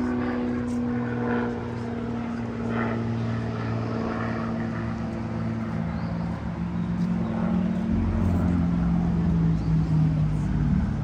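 Motor engine running steadily with a constant hum; about eight seconds in a deeper, louder engine sound comes in and holds.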